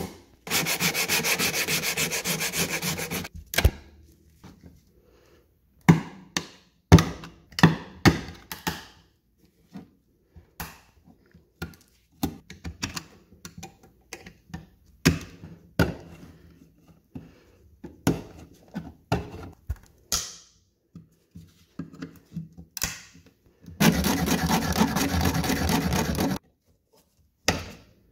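Old finish being scraped off a wooden rail with a razor-blade scraper and a utility-knife blade. There is a fast run of back-and-forth scraping at the start, then scattered single scrapes and light taps, and another fast scraping run near the end.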